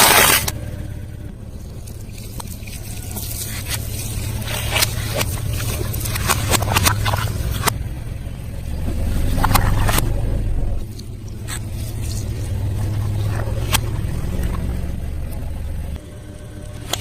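Close chewing and crunching of food: irregular sharp crunches and smacks over the low, steady hum of a car's idling engine.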